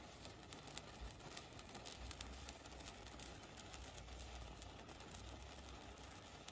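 Bamboo colour sparkler burning: a faint hiss with many small, scattered crackles, over a low rumble.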